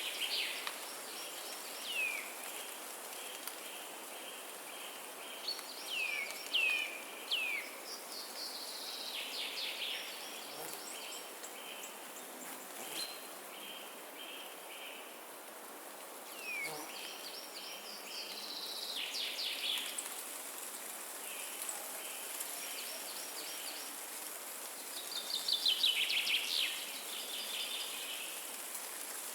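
Several songbirds singing in a forest: quick notes that sweep downward, rapid trills, and a louder run of trilled notes near the end. Under them is a steady hiss of wind.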